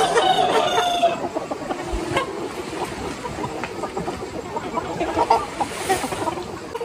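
A large flock of free-range chickens clucking and calling continuously, with a rooster's crow trailing off about a second in.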